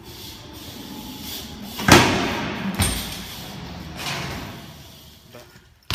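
BMX bike hitting a concrete ledge on a double-peg grind attempt: a loud bang about two seconds in, a second knock under a second later and a weaker one about four seconds in, each echoing in the concrete parking garage.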